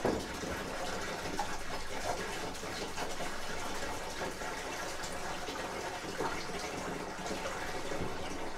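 Mineral spirits pouring from a gallon can into an aluminum fuel cell: a steady splashing pour.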